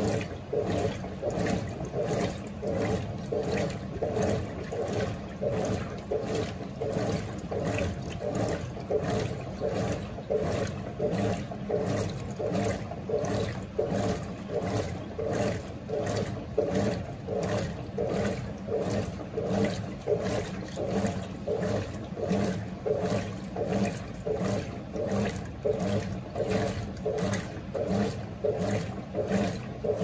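GE Imagination 10 kg top-load washing machine agitating in the rinse: the agitator swings the water and clothes back and forth, sloshing in an even rhythm of about three strokes every two seconds.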